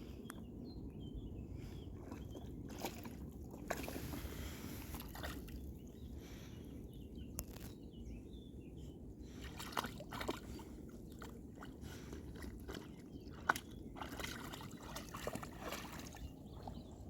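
Lake water gently lapping and sloshing at the shore, a steady low wash with a few small clicks and splashes.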